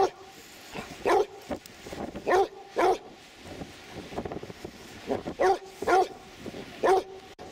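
Basset hound barking while it digs in sand: about seven short single barks at uneven intervals.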